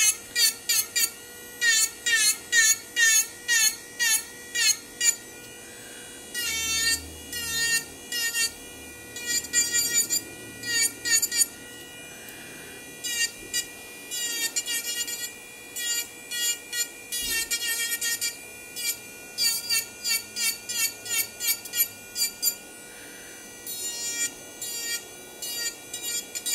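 Electric nail drill (e-file) whining at high speed while its bit files a nail in short, repeated strokes, a few a second. The pitch wavers with each stroke, with brief pauses between runs.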